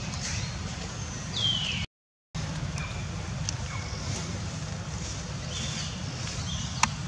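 Outdoor ambience: a steady low rumble with a few short, high chirps that fall in pitch, and a sharp click near the end. The sound cuts out completely for about half a second around two seconds in.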